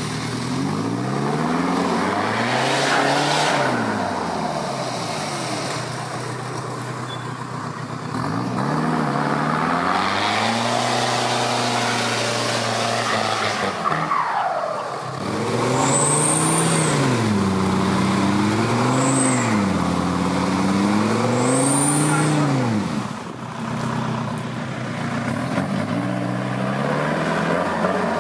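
A 4x4 off-road vehicle's engine revving up and down over and over, as the vehicle works through mud. Three short high-pitched squeals, each rising and falling, come in the second half.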